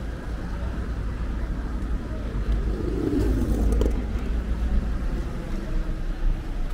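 Street traffic: a car's engine and tyres giving a low, steady rumble that swells about three seconds in.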